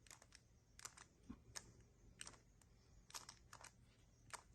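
Faint, irregular clicks and clacks of a 3x3 speedcube's layers being turned, about ten quick turns, as the Jb perm last-layer algorithm is executed.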